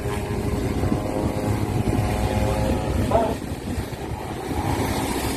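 Steady low rumble of a fishing vessel's engine, with a steady pitched drone over it for the first three seconds and a brief voice about three seconds in.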